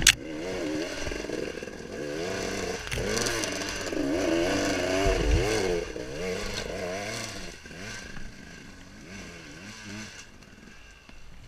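Two-stroke enduro motorcycle engine revving up and down unevenly on a steep climb, the throttle blipped again and again. It fades after about seven and a half seconds.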